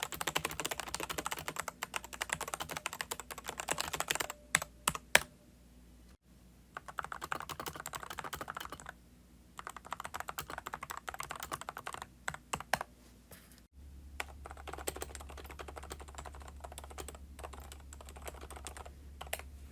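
Typing on a mechanical keyboard: rapid clattering keystrokes in several separate runs, with a few single key presses between them. The runs are separate takes cut together, comparing the sound of different mechanical key switches. A steady low hum sits under the last run.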